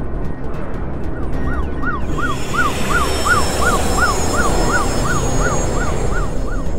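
Electronic siren in a fast yelp, about three rising-and-falling whoops a second, starting about a second in, over a low rumbling drone and a city hiss.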